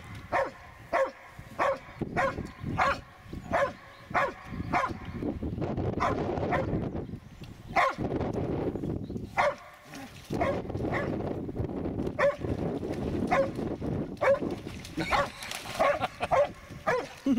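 Karelian bear dog barking repeatedly at wild boars: bay barking, short sharp barks about one or two a second. The barks thin out in the middle, where a rougher, lower noise rises underneath.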